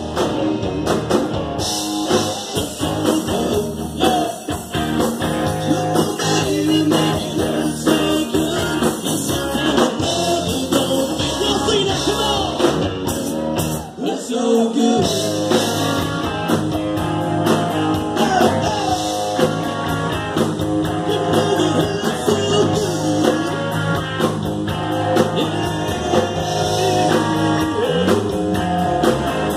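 A live country-rock band playing, with acoustic and electric guitars over drums; the low end drops out briefly about halfway through.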